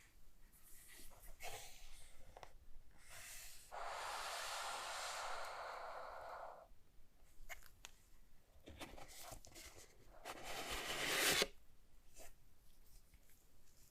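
Keyboard packaging being handled: rubbing and sliding rasps with small taps between them, one long rasp lasting a couple of seconds about four seconds in, and a louder one that builds and cuts off sharply about eleven seconds in.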